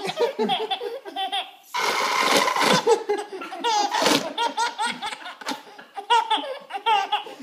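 Baby laughing in repeated fits of belly laughs. A whoopee cushion lets out a long buzzy raspberry about two seconds in.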